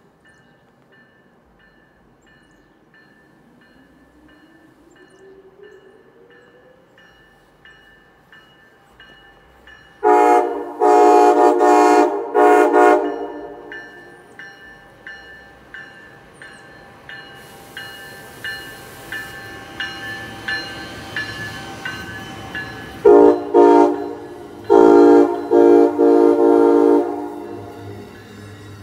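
Amtrak ACS-64 electric locomotive sounding its multi-chime horn in a hornshow: a quick run of short blasts about ten seconds in and another run of short blasts some thirteen seconds later. Between and after them the train rushes past, its wheels clicking steadily over the rails.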